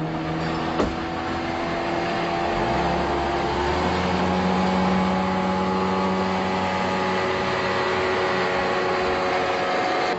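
Outboard motor of a small aluminium boat running at speed across calm water: a steady engine drone that rises slightly in pitch a few seconds in.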